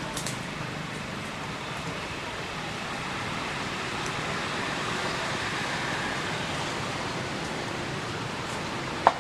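Steady outdoor background noise, an even hiss like distant traffic, with one sharp click near the end.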